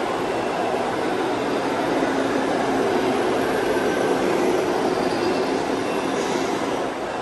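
Steady background din of a large hall, an unbroken rumbling noise that swells slightly partway through.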